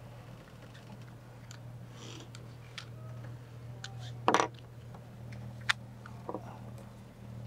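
Light clicks and rattles of a small plastic circuit breaker being handled and prised apart after its rivets were drilled out. A louder clatter comes about four seconds in and a sharp click a second later, over a steady low hum.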